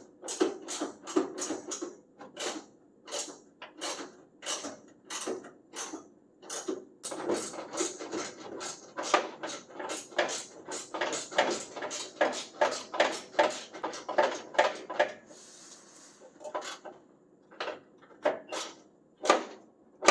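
Hand tools working a fender bolt on a 1965 Chevrolet C10: a long run of sharp metallic clicks and knocks, about two to three a second, thinning out briefly near the end.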